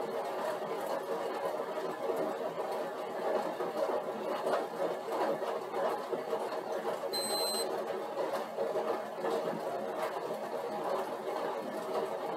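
Stationary exercise bike whirring steadily as it is pedalled under load, with a short high electronic beep about seven seconds in.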